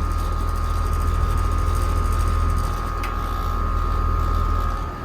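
Rheem heat pump outdoor unit running in cool mode: its scroll compressor and condenser fan give a steady low hum with a thin, steady whine above it.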